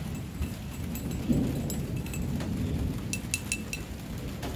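Thunder rumbling low, swelling about a second in and fading, over light rain. Near the end come a few short, high, ringing clinks.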